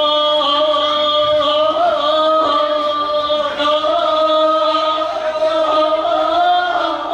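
Voices chanting in long, drawn-out notes, the pitch held steady with small bends.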